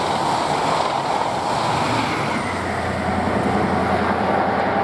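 Virgin Trains East Coast High Speed Train passing at speed, its Mark 3 coaches' wheels running on the rails in a steady rushing noise.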